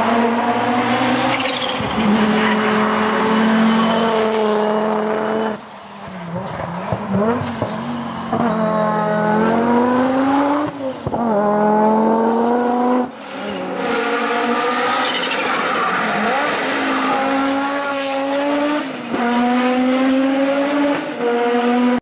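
Audi Sport quattro S1's turbocharged five-cylinder engine accelerating hard through the gears, its pitch climbing and then dropping back at each upshift, repeated over three separate passes of the car.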